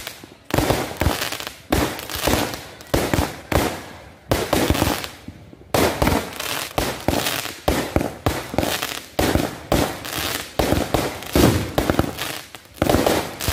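Aerial fireworks going off in quick succession: sharp bangs, several a second, with a short lull about five seconds in before they pick up again.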